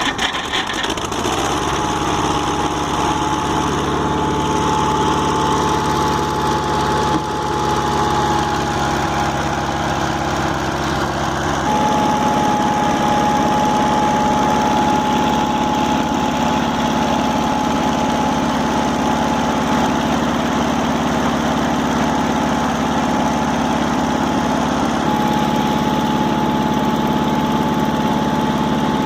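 A Mobile Dimension portable sawmill's small gasoline engine comes in abruptly and runs steadily, with a thin steady whine over it. The sound steps up slightly about 12 seconds in and again about 25 seconds in.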